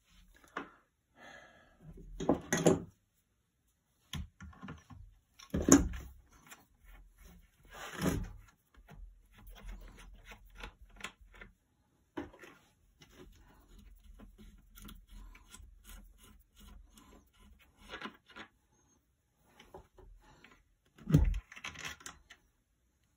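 Hand-handling noises from dismantling a plastic electric fence controller: small clicks and rubbing of plastic and metal parts as the terminal caps and nuts are worked off, with four louder knocks against the wooden work surface.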